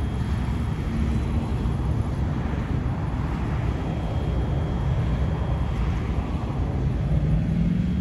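Steady low rumble of motor vehicles running, with a faint steady hum over it.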